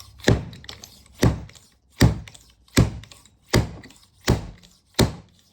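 A 49mm fork seal driver (seal pounder) strikes repeatedly as it drives a new oil seal down into a Harley-Davidson Dyna fork lower. There are seven sharp thunks, about one every three-quarters of a second, each with a short metallic ring.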